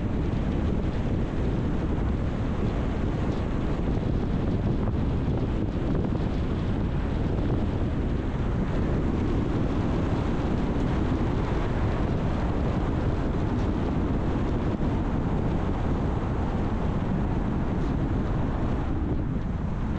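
Steady road noise of a moving car: low tyre and engine rumble mixed with wind noise, even throughout.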